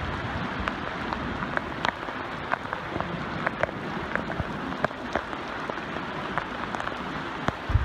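Heavy rain and rushing flash-flood water: a steady hiss dotted with scattered sharp taps, and a dull thump near the end.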